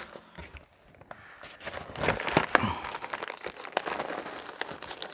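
Paper and plastic packaging crinkling and rustling, with a few light knocks, as kit parts are packed back into their box by hand. It is quiet at first and picks up about two seconds in.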